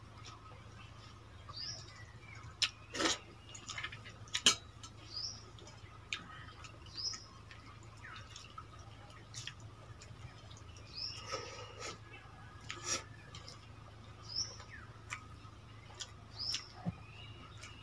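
Hand-eating sounds: fingers scooping and squeezing wet pakhala rice in steel bowls, with scattered sharp clicks and taps of fingers against the metal, the loudest about four and a half seconds in. Short high bird chirps come every second or two behind them.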